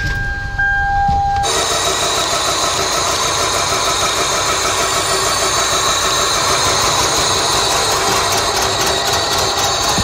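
1999 Toyota Camry's 2.2-litre four-cylinder engine idling rough with a misfire: cylinders one and two are not firing. A steady electronic tone sounds over it for the first second and a half.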